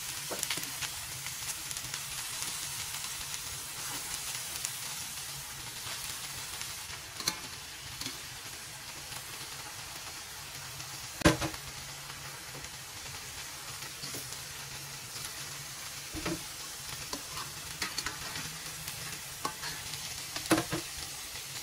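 Oil sizzling steadily in a hot wok under a bed of ginger, spring onion and coriander as whole fish are laid in, with a few short knocks as they are placed, the loudest about eleven seconds in.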